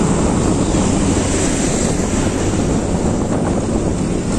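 Wind rushing over the microphone of a moving motorcycle, a steady loud noise with engine and road rumble beneath.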